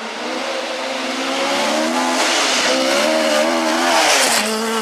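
Mk2 Ford Escort rally car approaching at speed and passing close by, its engine revving hard and climbing in pitch, loudest about four seconds in, then the revs dropping sharply near the end.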